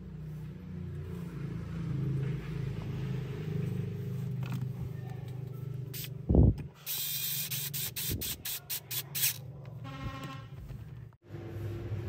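Screwdriver driving the mounting screw of a power transistor into an aluminium heatsink, over a steady low hum. About six seconds in there is one knock, then a rapid run of short scraping clicks for about two and a half seconds, and a brief squeak near the end.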